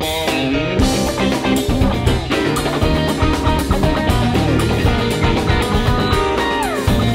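Live rock band playing an instrumental break: electric guitar over drum kit and bass, with a falling glide in pitch near the end.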